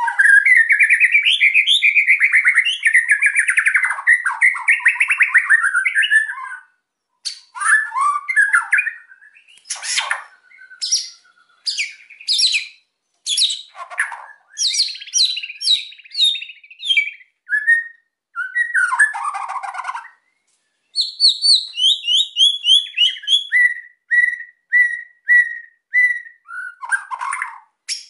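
White-rumped shama (murai batu) in full, agitated song. It opens with a long rapid rattling trill lasting about six seconds, then moves through varied whistled phrases with short pauses. Near the end come a quick run of falling notes and a row of short repeated notes.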